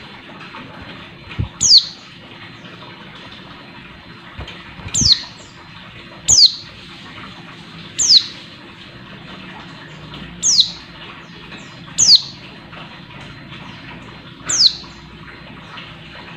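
A female white-eye (pleci) giving short, sharp calls that drop steeply in pitch, seven in all, one every two seconds or so: the female's call for rousing male birds. Soft thumps of the bird hopping and fluttering on its perch come in the first few seconds.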